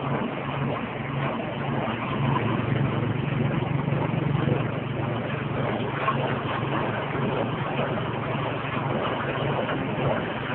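Soybean husk grinding machine running, driven by a 6.5 hp engine: a steady engine hum with the mill's grinding noise as it grinds soybean husks.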